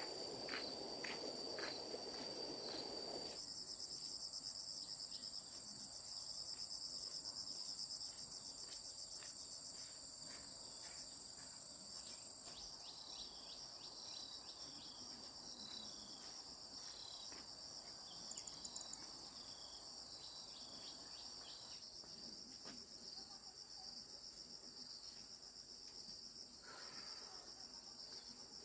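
Insects chirring steadily in a high-pitched chorus, with pulsing trills layered over a continuous shrill tone. A low rustling noise sounds for the first three seconds.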